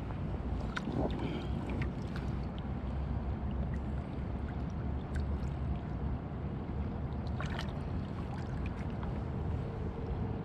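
Shallow river water moving around the camera, with a steady low rumble of wind on the microphone. A few small splashes and clicks come from hands handling a trout in the water, about a second in and again near the end.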